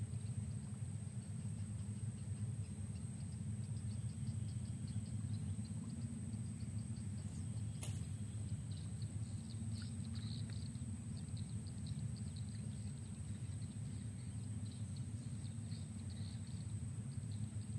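Steady low outdoor rumble, with faint high chirping throughout and one sharp click about eight seconds in.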